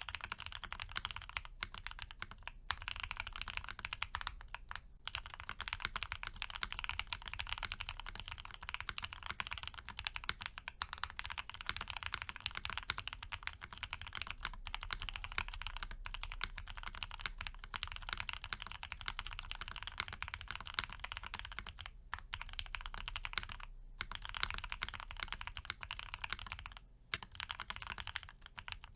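Continuous fast typing on a custom 60% mechanical keyboard with lubed and filmed Gateron FC linear switches, a polycarbonate plate and CRP APL keycaps, a dense stream of keystrokes broken by a few brief pauses.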